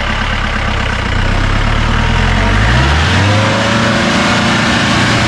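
Mahindra 4x4 jeep's turbo engine running under load off-road. About three seconds in it revs up, its note rising and then holding higher, over a steady rushing hiss.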